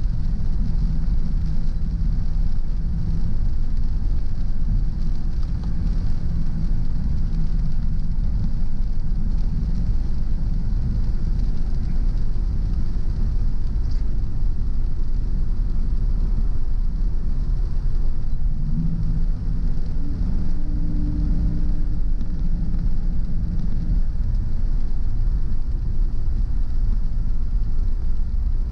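Car driving: a steady low rumble of engine and tyre noise, with a humming engine note that rises into prominence for a few seconds about two-thirds of the way through.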